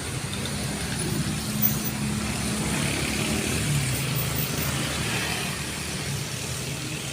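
A bus's engine running steadily as the bus passes on the road, with tyre and traffic noise swelling in the middle.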